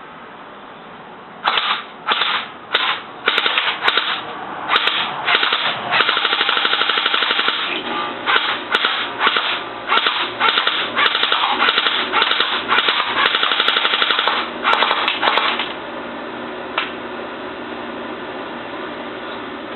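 Electric airsoft AK-47 with full metal gears firing: a few single shots, then rapid full-auto bursts of evenly spaced cycling clicks, the longest about two seconds. The firing stops near the end, leaving a steady hum and one last click.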